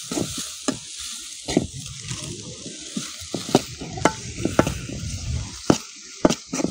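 Chopped onion and green chilli sizzling in hot oil in a metal wok, with a steady hiss. A perforated steel spoon stirs them, scraping and clicking against the pan at irregular moments.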